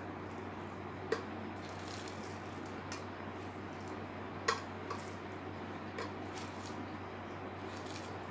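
Hands squeezing and picking through moist minced meat in a steel bowl: soft squishing with four short clicks against the metal, the sharpest about halfway through, over a steady low hum.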